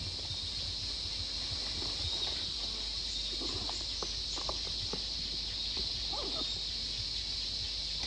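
Steady high-pitched chorus of tropical jungle insects at dusk, with a few faint rustles and crackles of leaves and twigs in the middle.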